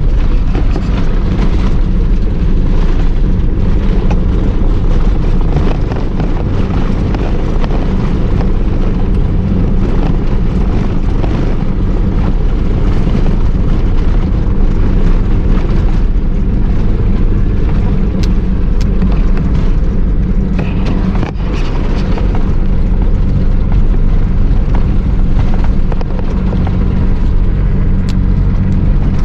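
4x4 vehicle's engine running hard under steady load while driving fast through thick sand, with scattered knocks and rattles from the vehicle.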